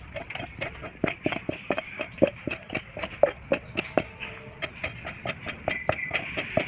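Stainless-steel tumbler rim scraping hair off a goat's skin: short rasping strokes, about three or four a second.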